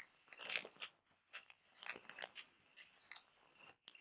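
Close-up handling of a handheld roller massager: its small metal roller balls and plastic body give irregular soft clicks, taps and rubbing, several a second.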